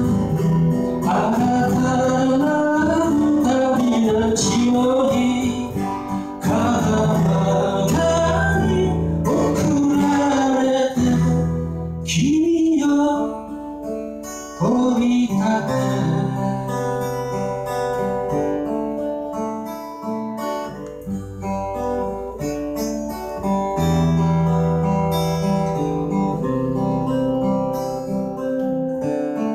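A man singing to his own acoustic guitar strumming. The voice drops out about halfway through and the guitar carries on alone.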